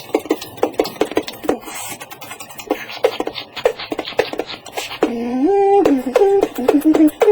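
Human beatboxing: a rapid run of percussive mouth clicks and drum-like hits. About five seconds in, a hummed, pitched vocal line joins the beat, stepping up and down in pitch.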